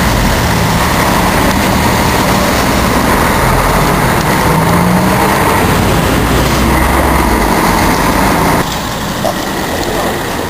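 Road traffic passing close by: a minibus and then a light pickup drive past, their engines and tyres loud. The noise drops off suddenly about eight and a half seconds in.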